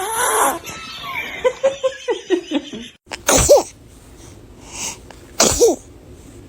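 Newborn baby sneezing twice, about two seconds apart: each a sudden burst of breath with a short, high-pitched squeak.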